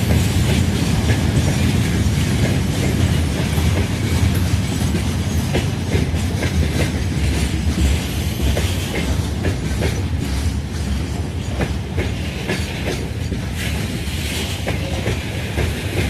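Train hauled by a 2M62U diesel locomotive rolling past, with a steady low rumble and rapid, irregular clacks of the wheels over rail joints. The sound eases slightly toward the end.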